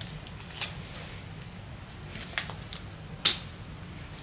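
White disposable gloves being pulled on: several sharp snaps of the glove material, the loudest about three seconds in, over a low steady hum.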